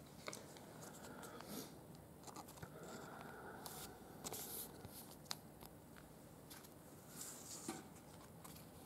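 Faint rustling and scattered small clicks of trading cards being handled and slid past one another.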